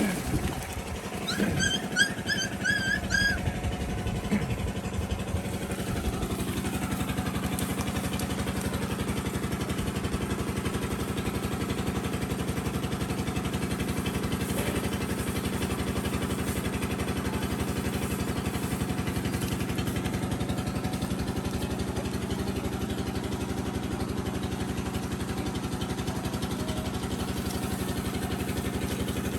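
An engine running steadily with an even hum. Near the start, a quick run of about five short high-pitched chirps.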